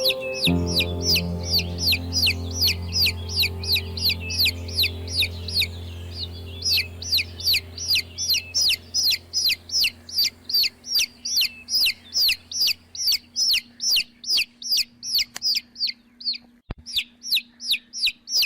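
Baby chicks peeping in a quick steady run of short falling notes, about three a second, over a soft sustained music pad that fades out about halfway through.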